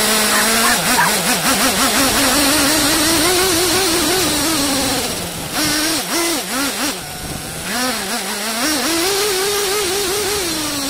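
Hobao Hyper SS 1/8-scale nitro buggy's small glow-fuel engine revving up and down in quick throttle blips, heard from a microphone on the car itself with a constant rush of wind and dirt. It eases off for a few seconds midway, then climbs to a held high rev and drops back near the end.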